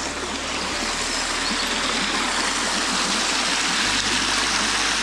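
Small woodland stream rushing and splashing over rocks and a little cascade: a steady, even rush of running water.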